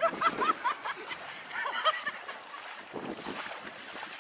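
Legs wading through shallow river water, sloshing and splashing with each stride. Twice, in the first second and again about two seconds in, a run of short high-pitched calls repeats quickly over the water noise.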